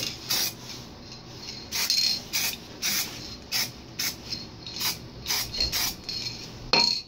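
Aerosol spray can hissing in a series of short bursts about every half second, some with a thin whistle, the last near the end being the strongest.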